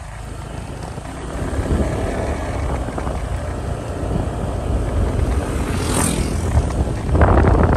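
Motorcycle riding along a road: engine running steadily under the rush of wind on the microphone, slowly getting louder, with a brief high hiss about six seconds in and a louder stretch near the end.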